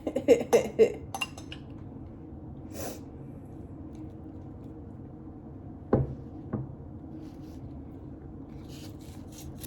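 Dishes and utensils clinking and knocking at a table during a meal: a few scattered clicks, two sharp knocks about six seconds in, and a run of short crackly clicks near the end.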